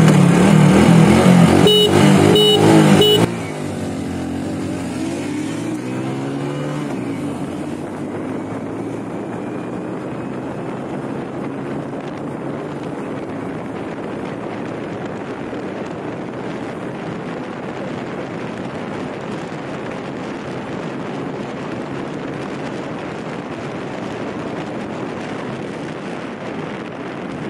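Motorcycle engines revving hard at the launch of a drag race, with a few short horn toots about two seconds in. After about three seconds the level drops and steady wind rushing on the helmet microphone covers the engine, which rises faintly in pitch as the Hero Glamour 125 accelerates; the visor was slightly open.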